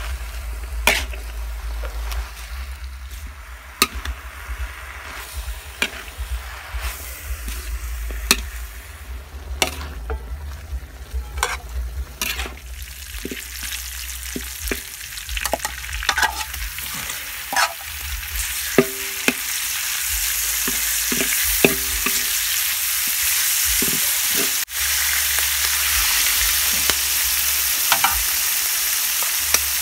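Metal spatula scraping and clinking against a steel wok during stir-frying, with hot oil sizzling under the strokes. About two-thirds through, the sizzle grows into a loud, steady hiss.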